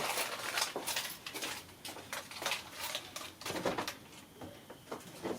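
Irregular light clicks and rustling of handling, with a faint high steady tone about four seconds in; no engine running is heard.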